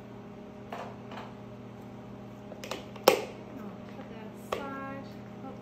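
A few light taps as seasoning is shaken into a small microwave cooker, then a sharp clack about three seconds in as its lid is set on, and a second knock a little later. A steady low hum runs underneath.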